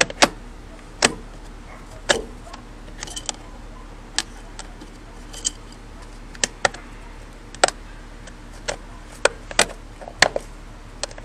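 Irregular sharp clicks and knocks, about one or two a second, as a trim cover and loose parts in a Porsche Boxster's front trunk are handled and fitted back in place. A faint steady hum runs underneath.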